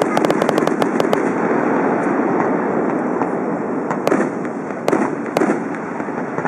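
Fireworks display: a dense run of rapid crackles in the first second or so, then a steady wash of noise, then several separate sharp bangs from about four seconds in.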